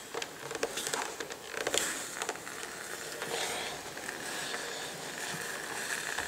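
Hands rustling and smoothing cotton fabric, with light scattered clicks and scuffs as a steam iron is moved onto it to press a seam open.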